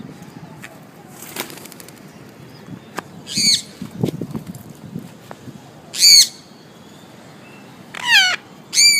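Free-flying parrot's wingbeats flapping, with four short, loud calls that fall in pitch, spaced a few seconds apart and the last two close together near the end.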